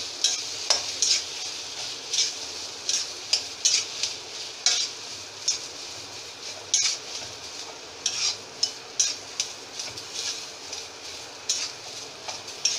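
Steel spoon scraping and stirring mashed boiled potatoes around an aluminium kadhai, coating them in the fried spice masala, with irregular scrapes about one or two a second. Underneath is a steady light sizzle of the hot oil.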